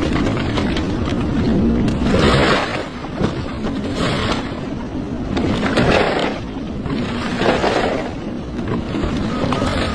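Excavator working at a house demolition: a steady low engine rumble, with a rushing, scraping noise that swells about every one and a half to two seconds.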